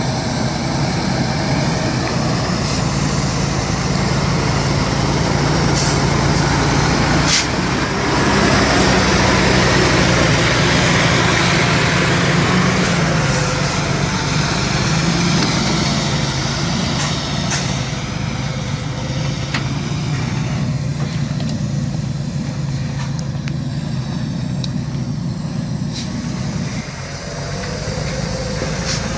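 Heavy logging truck's engine running steadily, loudest about a third of the way in and easing off in the second half, with a few sharp knocks along the way.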